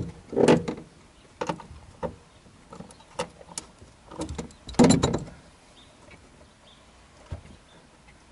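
Scattered knocks and taps of a screw being tapped with a hammer into the car body's sheet metal to start the amplifier ground-wire screw, the loudest about five seconds in.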